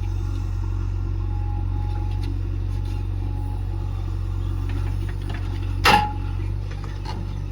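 A heavy diesel engine of a tractor or backhoe running steadily with a low drone. About six seconds in comes one short, loud, sharp clank with a brief ring.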